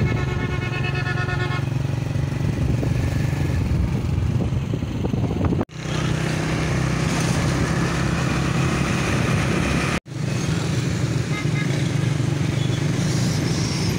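Steady engine hum and road noise from a vehicle being ridden along a road through traffic. A pulsing, horn-like tone sounds for under two seconds at the start. The sound cuts out abruptly twice, once about halfway through and once about two-thirds through.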